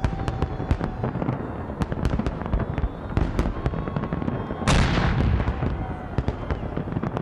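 Fireworks display: shells bursting in rapid, overlapping bangs and pops over a low rumble. About two-thirds of the way through comes one louder, dense crackling burst.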